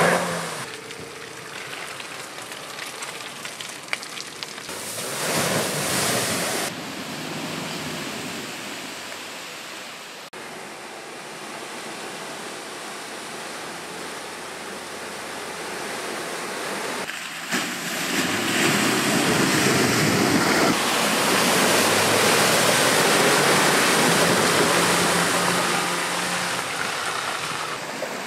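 Muddy water splashing and surging as a 2020 Land Rover Defender P300 wades through a flooded ditch, its inline four-cylinder petrol engine running underneath. The rushing grows loudest in the second half.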